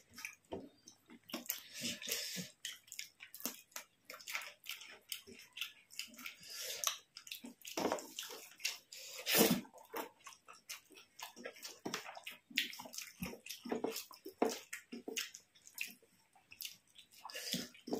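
Close-up eating sounds of people eating rice with fish curry: wet smacking and chewing, with irregular small clicks and squelches.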